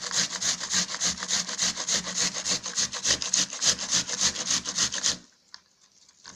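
Onion being grated on the finest side of a grater: quick, even rasping strokes, several a second, that stop about five seconds in.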